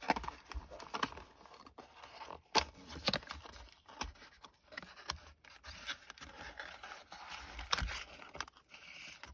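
A small cardboard box being opened by hand: irregular scraping and rustling of the flaps and packaging, with scattered sharp clicks and a few louder knocks as the contents are pulled out.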